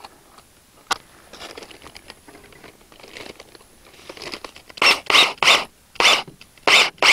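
Cordless drill driving a wood screw through a metal strap into a wooden baseboard, run in about six short bursts starting about five seconds in. Before that, a single click and light rustling.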